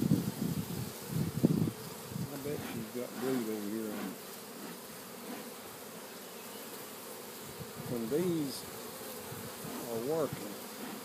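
Honeybees buzzing around an open hive. Single bees fly close past with a buzz that wavers up and down in pitch, three times. A few low thumps come in the first couple of seconds.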